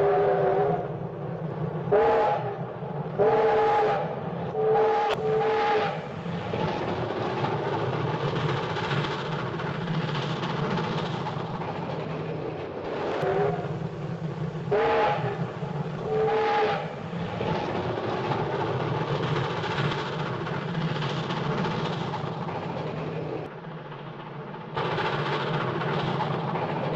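Cartoon steam train sound effect: a chime whistle sounds a chord of several notes in short repeated blasts, about four times in the first six seconds and three times more around the middle. Under the whistle runs a steady rumble and clatter of the moving train, which dips briefly near the end.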